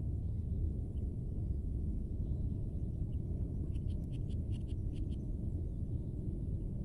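Steady low rumble of wind buffeting the microphone by the water, with a few faint light ticks around the middle as a pole fishing rod and its line are handled.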